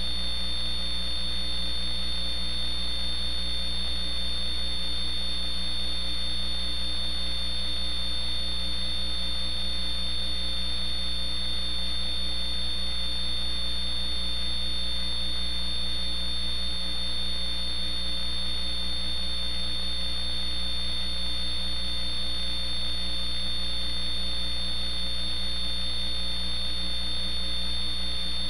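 Steady electrical mains hum with a high thin whine on top, unchanging, with no other sound.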